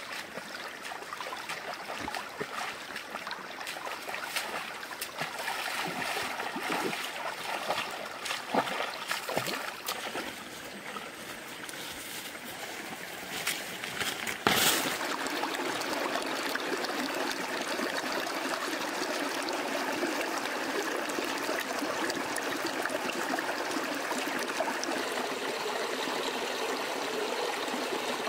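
Water trickling in a small stream, with scattered rustles and crackles of plants in the first half. About halfway the sound cuts to a steadier, fuller wash of running water.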